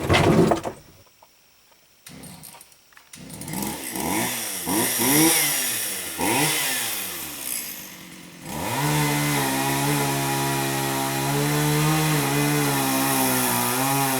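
Gasoline chainsaw starting up: for a few seconds its engine note rises and falls unevenly, then about two-thirds of the way through it settles into a steady idle.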